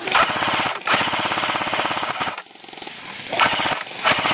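Airsoft M60 machine-gun replica firing full-auto as a rapid, even rattle of shots. A short burst runs straight into a longer one, then after about a second's pause another burst fires near the end.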